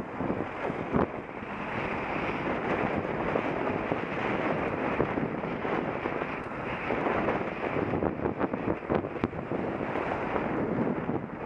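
Steady wind buffeting the microphone of a camera moving along a road, with a few brief knocks about a second in and again near the end.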